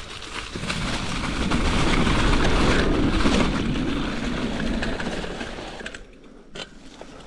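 A mountain bike rolling down a steep sandy, leafy chute, its tyres churning through sand and leaves and its frame rattling and clicking. The rumble swells, is loudest around two to three seconds in, and dies away by about six seconds.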